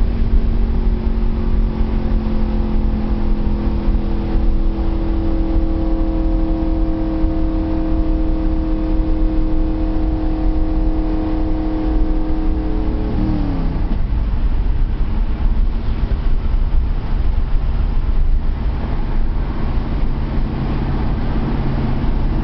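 Stock car's V8 engine running hard at high revs, heard from inside the cabin over heavy road and wind noise. Its pitch sinks slowly, then drops sharply about 13 seconds in as the revs fall away, and it carries on at a lower note.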